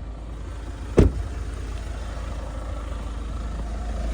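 Mahindra Scorpio-N diesel engine idling steadily, with no tak-tak tick from the vacuum pump, which the owner takes as a sign that the fix has worked. A single loud thump about a second in.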